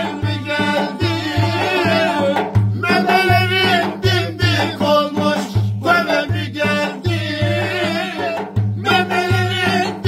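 Men singing a Turkish folk dance tune together, backed by a davul drum beating a steady rhythm and a strummed cümbüş.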